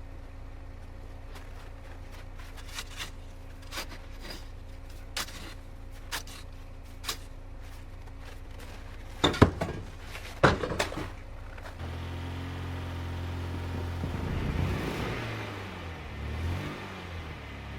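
Lada Niva's four-cylinder engine running at a low steady hum, with scattered clicks and two loud knocks about nine and ten and a half seconds in. From about twelve seconds in the engine gets louder and revs, its pitch rising and falling several times.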